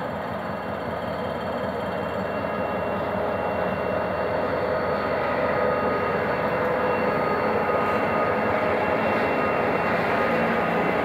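GM GT22CW-2 diesel-electric locomotive pulling a passenger train away, its V12 two-stroke EMD 645 diesel running under load. The engine grows louder as the locomotive passes close by, about halfway through. After that come the rumble and rattle of the coaches rolling past on the track.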